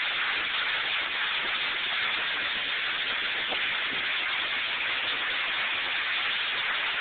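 Heavy rain pouring down on pavement in a storm: a steady, even hiss.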